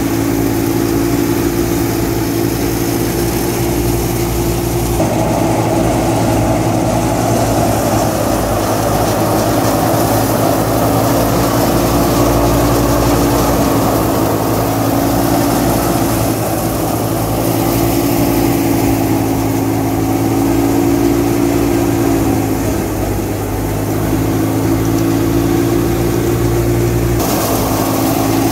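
Wheat thresher running steadily, driven off the PTO of a Massey Ferguson 385 tractor: a loud, continuous mix of the tractor's diesel engine under load and the thresher's whirring drum and blower. The tone shifts abruptly about five seconds in and again near the end.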